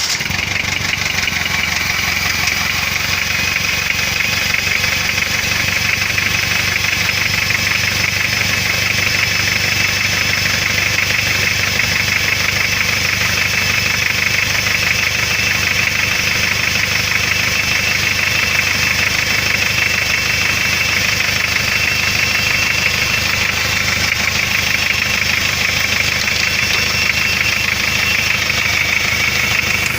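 Hyundai Starex 2.5 turbodiesel engine running steadily at idle with a knock. The knock is engine damage left by a failed turbocharger.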